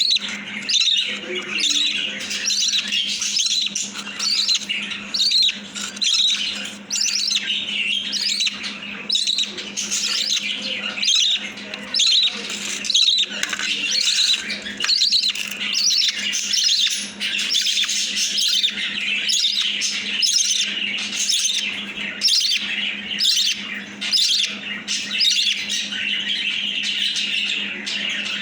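Baby budgerigar chick giving rapid, repeated begging calls, about two a second, typical of a chick being hand-fed. A steady low hum runs underneath.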